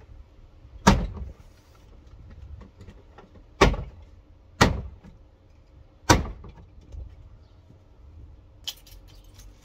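Plastic interior trim panel of an Audi A6 Avant tailgate being pushed back into its clips by hand. Four sharp knocks spread over about five seconds, with a few lighter clicks near the end.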